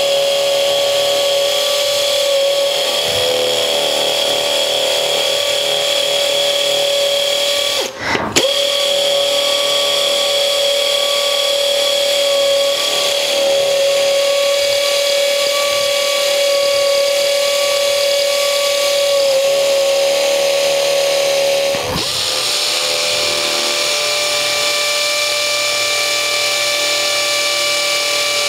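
Makita HP001G 40V cordless drill running in hammer-drill mode, boring 3/8-inch holes in hard concrete: a steady, high-pitched whine. It stops briefly about eight seconds in, then starts again, and dips again briefly a little past twenty seconds.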